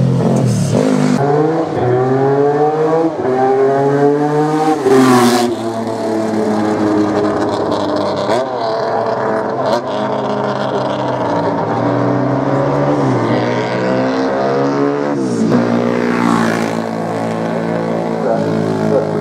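Classic racing motorcycle engines accelerating hard along the course. The engine pitch climbs through each gear and drops sharply at the gear changes, about five seconds in and again around fifteen seconds in.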